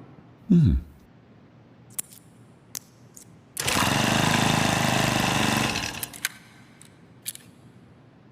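A short tone sliding down in pitch, then a few faint clicks, then a steady motor-like buzz that starts suddenly and lasts about two seconds before dying away.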